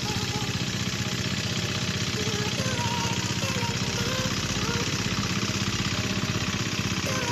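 A small engine running steadily at an even speed, with a fast, regular pulse.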